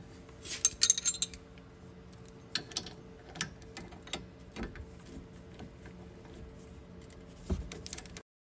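Steel combination wrenches clinking against each other and against a rear brake caliper bolt as they are fitted and worked to loosen it: scattered sharp metallic clicks and taps, a cluster of them about a second in and again near the end, over a faint steady hum.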